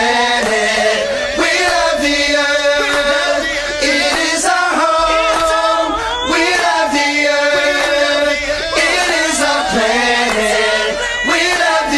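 Song playing: a group of voices singing together in a choir-like refrain over backing music.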